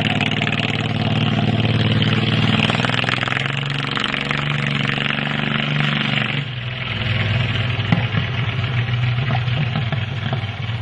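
Mini chopper's 18 hp 614 cc V-twin engine running steadily as the bike rides off; about six seconds in the sound turns duller and more distant.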